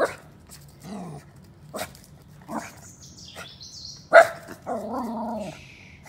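West Highland White Terrier puppy barking at a cat in a string of short, sharp barks, the loudest about four seconds in, followed by a longer, drawn-out bark.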